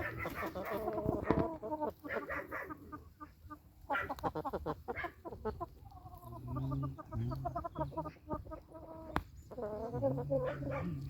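Chickens clucking in runs of quick repeated notes with short pauses between.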